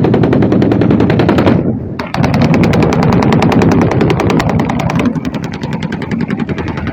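Loud fully automatic rifle fire, rapid shots at about ten a second: a burst of about a second and a half, then after a short pause a longer unbroken burst of about five seconds.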